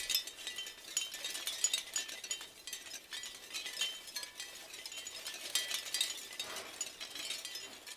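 Wind chimes clinking in irregular clusters of overlapping strikes, each strike leaving high ringing tones.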